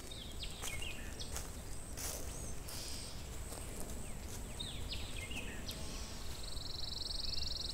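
Woodland ambience: small birds giving short chirps, then a fast buzzing trill starting about six and a half seconds in, over a steady low rumble.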